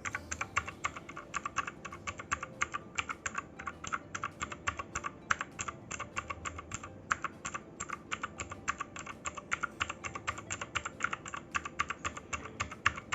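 Fast continuous typing on a Rexus Daxa M71 Classic mechanical keyboard with Blue switches: a steady stream of sharp, rather shrill key clicks, several a second.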